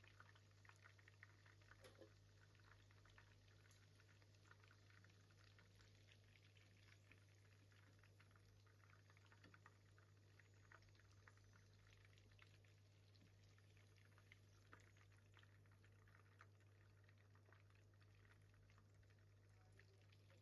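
Very faint, irregular crackling and popping of chicken frying in oil in a pan, over a steady low hum.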